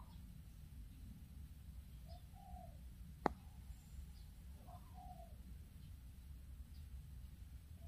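Faint snoring of a Shih Tzu, a soft rising-and-falling whistle about every two and a half seconds with its breaths, over a low rumble. A single sharp click sounds a little past three seconds in.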